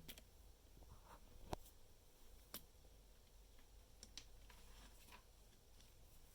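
Faint, scattered clicks of Lego Technic pieces being handled and pressed into place, about four short sharp clicks over near silence.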